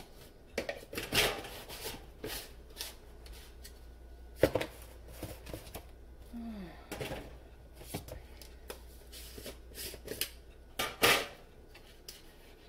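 Kitchen items being handled on a counter: irregular clicks, taps and rustles, with the sharpest knocks about four and a half and eleven seconds in.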